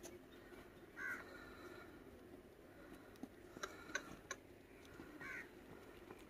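A crow cawing faintly twice, about four seconds apart, with a few faint clicks between the calls over a steady low hum.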